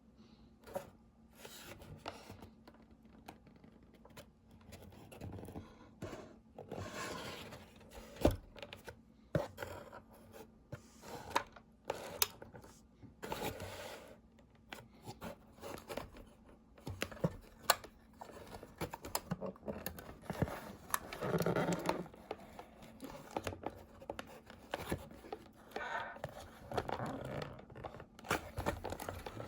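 Packaging being handled and opened by hand: irregular clicks and knocks with short spells of rustling, scraping and tearing of cardboard and plastic.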